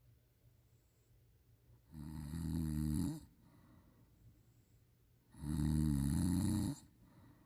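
A sleeping person snoring: two snores, each about a second long, a few seconds apart.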